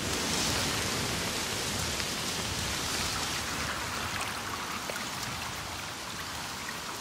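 Steady rushing noise of a rain-like weather ambience, with a few faint ticks scattered through it.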